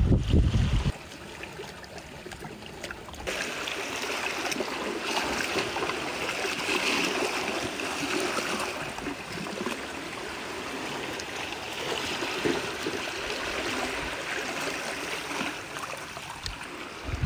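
Shallow seawater running and trickling between rocks in a tide pool, a steady wash that starts about three seconds in. Wind rumbles on the microphone at the very start.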